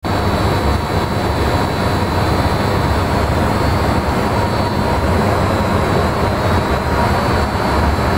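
Industrial machinery running steadily: a loud, even roar with a deep rumble underneath and a faint steady high whine.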